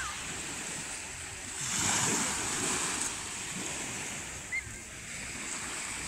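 Small sea waves washing onto the shore in a steady wash, swelling louder for about a second around two seconds in. A short high chirp sounds about four and a half seconds in.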